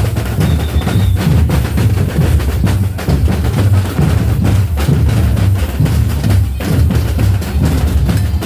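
Batucada samba drum ensemble playing loudly: deep surdo bass drums under rapid snare drum strokes in a driving, steady rhythm.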